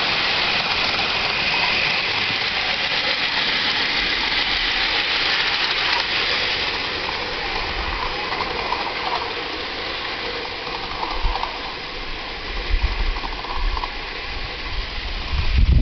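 Live-steam miniature locomotive running on its track and pulling away, a steady hiss that slowly fades as it goes. Low rumbling bumps near the end.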